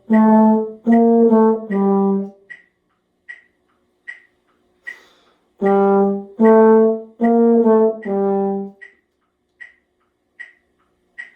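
A trombone plays a short slurred-then-tongued five-note phrase, G, A, B-flat, A, G, twice, with a gap of about three seconds between. A metronome clicks steadily, a little over once a second, throughout, and is heard alone in the gap.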